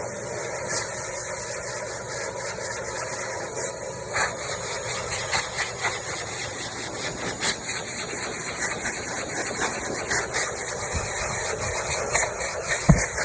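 High-velocity pet hair dryer running steadily: a strong rush of air over the motor's hum, with a few brief knocks, the loudest near the end.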